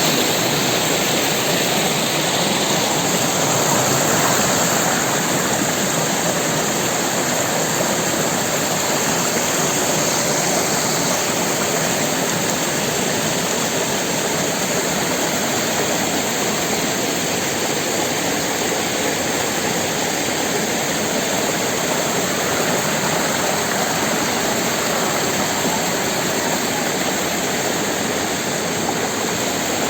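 Steady rushing roar of a waterfall, loud and unchanging.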